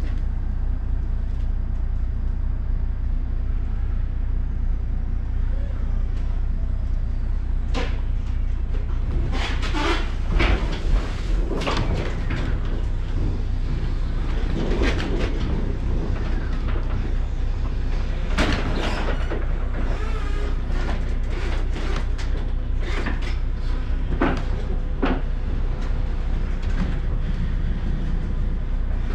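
Forklift loading wooden crates into a truck trailer: irregular clanks and knocks as it comes aboard, loudest about a third of the way in, over a steady low hum.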